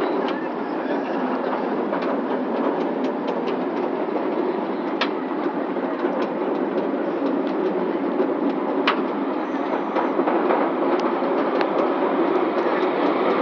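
Leviathan roller coaster train climbing its lift hill: a steady clattering run along the track, with occasional sharp clicks.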